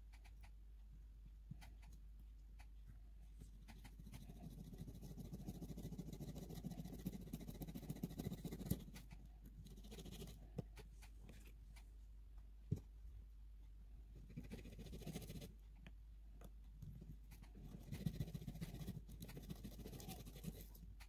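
Faint scratching and rubbing as fingers work a tiny potato piece over a small wooden cutting board. It comes in a few bouts, with a couple of light clicks.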